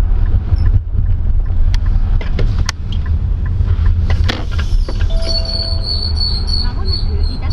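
Nissan X-Trail (T33) on the move: a steady low road rumble with sharp clicks or knocks every so often, the abnormal noise the car makes while driving. From about five seconds in a high-pitched pulsing chirp joins.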